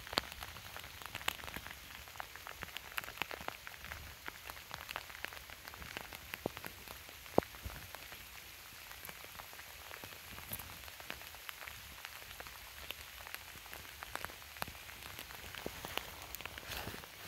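Steady light rain falling on the surrounding vegetation, with many scattered close drop ticks at irregular moments, one of them sharper about seven seconds in.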